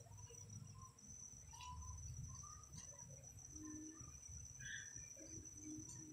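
A steady, high-pitched insect trill, with faint scattered short chirps and a low rumble underneath.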